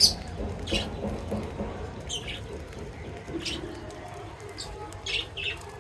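Pet birds chirping: short, sharp, high chirps about every second or two, the loudest right at the start and a quick pair near the end, over a low steady background murmur.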